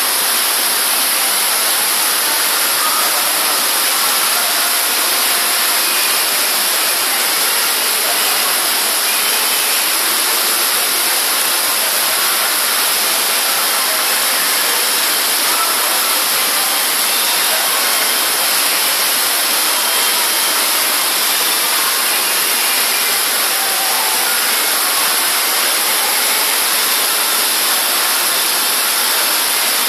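Heavy rain on a building's roof, with water pouring through the leaking roof onto the floor: a loud, steady rushing hiss.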